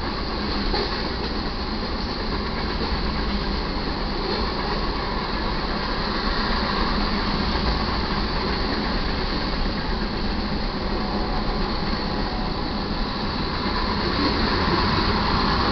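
Freight train rolling past: a steady rumble and rattle of wheels on rail, growing a little louder near the end.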